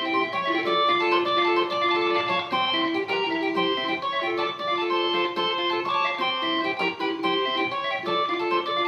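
Yamaha YC-20 combo organ playing a merengue melody in quick, short notes. It is registered with only the 8' lever up, plus the balance and brilliance controls, to imitate a piano.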